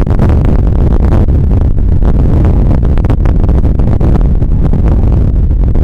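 Strong storm wind buffeting the microphone in a loud, continuous low rumble, over heavy storm surf breaking on the beach.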